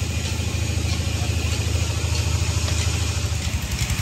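An engine idling with a steady low hum; its note changes slightly near the end.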